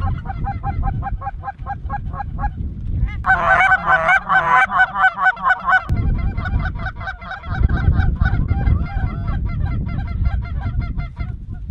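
A flock of geese calling overhead: a quick run of repeated honks, about four or five a second, then, about three seconds in, a sudden dense, louder chorus of many overlapping calls that lasts about three seconds before thinning back to scattered honking. A low rumble runs underneath most of it.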